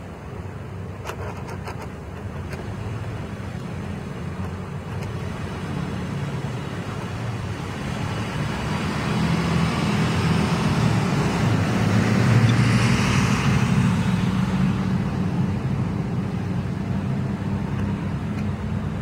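A road vehicle passing on the street: traffic noise with a low rumble that slowly builds, peaks about twelve seconds in, then fades. A few light clicks sound in the first couple of seconds.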